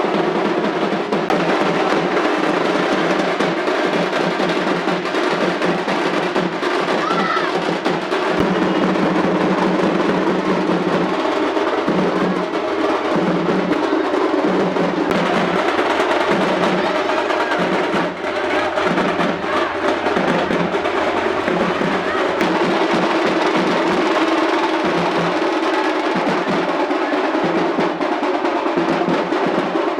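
Music with a strong drum and percussion beat.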